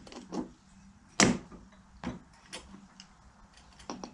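Small metal clicks and taps from hand-fitting a cotter pin through a spreader wheel axle against its washer. The sharpest click comes about a second in, with lighter ones scattered through the rest.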